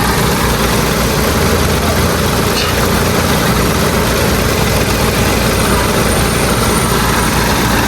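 Mitsubishi Dion's engine idling steadily and evenly: running smoothly, its misfire cured.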